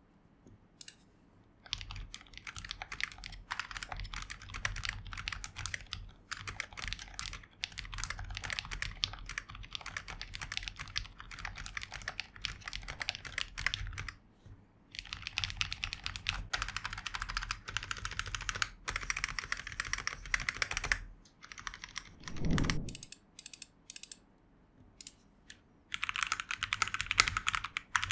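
Typing on a Noir Timeless82 V2 gasket-mount mechanical keyboard fitted with its stock silent switches: fast runs of soft, muted keystrokes. About 22 seconds in there is a brief low sound, and after a short pause the typing starts again, noticeably louder and brighter, on the same keyboard modded with ordinary linear switches and another keycap set.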